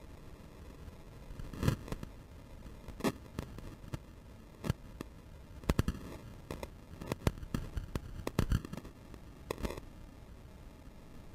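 Footsteps on the steel grating and plates of an old rusty railway bridge: irregular sharp metallic knocks and clanks, some in quick pairs, starting about a second and a half in and stopping shortly before the end.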